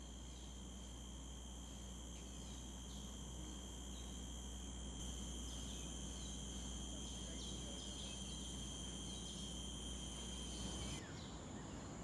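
Tropical forest ambience: several steady high-pitched insect drones, with short quick chirps scattered through. The drones shift abruptly near the end.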